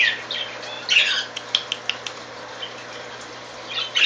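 Pet birds chirping: a quick run of short chirps and clicks in the first two seconds, then more chirping near the end.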